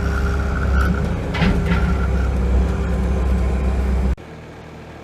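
Tube-Line inline bale wrapper running on its gasoline engine as the last bale goes through: a steady loud engine hum with a high whine, and a couple of knocks about a second and a half in. The sound cuts off abruptly about four seconds in.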